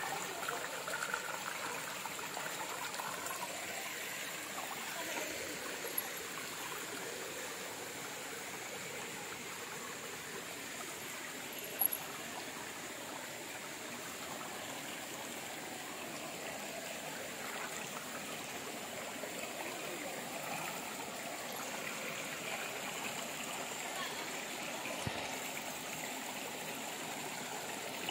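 Shallow rocky mountain stream flowing steadily over and between stones, a continuous babbling rush of water. A couple of brief clicks stand out, about six and twelve seconds in.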